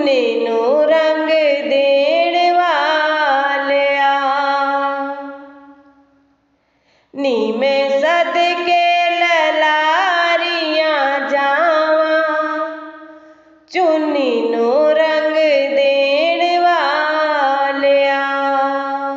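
A woman singing a Punjabi devotional shabad in three long, sustained phrases. The voice slides between notes, and each phrase is followed by a brief pause.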